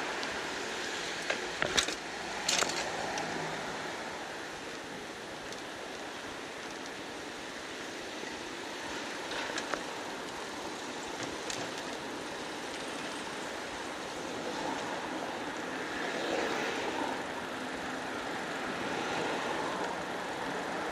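Steady city street traffic noise heard while riding a bicycle, with a few sharp clicks about two seconds in.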